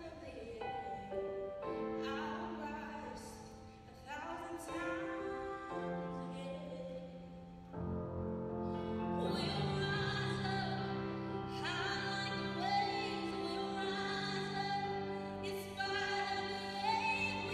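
A woman singing solo into a microphone in a classical, held-note style over an instrumental accompaniment. The music swells and gets louder about eight seconds in, when low sustained notes come in under the voice.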